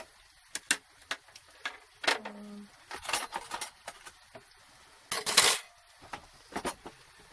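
Scattered clicks and knocks of crockery and cutlery being handled, with a louder scraping rush about five seconds in.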